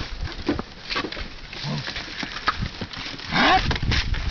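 Zebu oxcart on the move: irregular knocks and clatter from the cart as it rolls. About three and a half seconds in comes a short call that rises in pitch.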